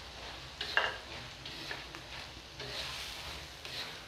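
Spatula stirring and scraping a thick dried Bombay duck (loitta shutki) curry in a metal wok, over a steady sizzle of frying. There are several scraping strokes, the sharpest about a second in. The masala is frying in its own separated oil, the sign that the curry is nearly done.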